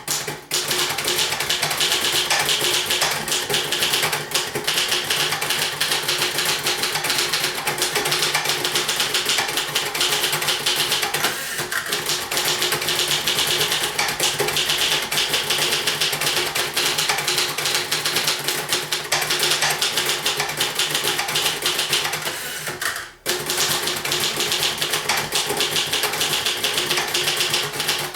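1966 Royal Safari portable manual typewriter being typed on quickly and continuously, a dense run of key strikes with one brief pause near the end.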